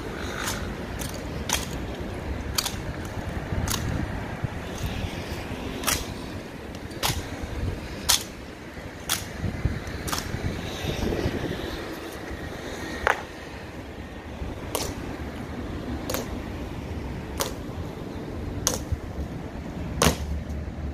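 Honor guards' boot heels striking the pavement in a slow ceremonial march: sharp single clacks about once a second, spacing out slightly toward the end.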